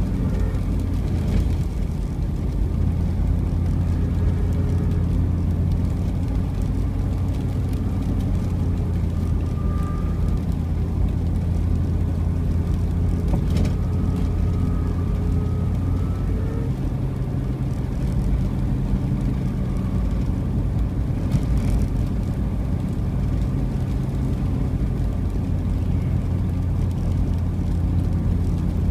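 A car driving along, with a steady low engine and road hum; the engine note shifts down a little about halfway through.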